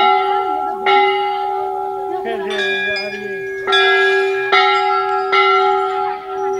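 Brass temple bells rung by hand, struck again and again, their tones ringing on and overlapping into a lingering hum. There are about five strikes: two close together at the start, then a burst of three in the second half.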